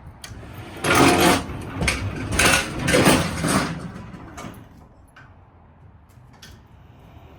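Rattling and scraping of goods being handled, in three loud bursts about a second apart, then a few faint knocks.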